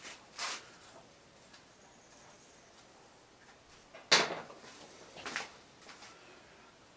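A few brief clatters and scrapes from tools being handled at the engine, the loudest about four seconds in; no cranking is heard.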